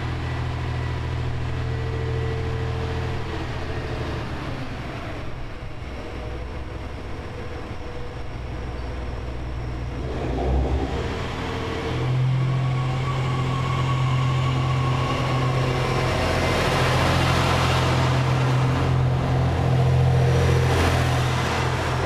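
JR East GV-E400 series diesel-electric railcar running, its diesel engine a steady low drone that steps up louder about twelve seconds in and stays there. A rising whine comes in right at the end.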